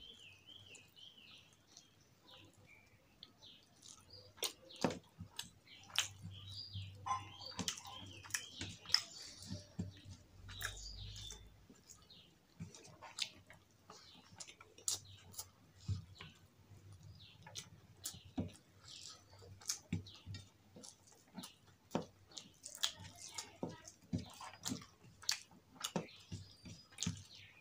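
Close-up eating sounds of rice and potato curry eaten by hand: irregular wet chewing, lip smacks and clicks, several a second at times, with fingers working the rice on a steel plate.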